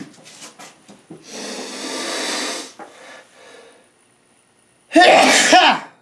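A man sneezing hard near the end, a loud voiced sneeze with a strong burst of air. About a second in, a long noisy rush of breath is heard, as in the build-up of a sneezing fit.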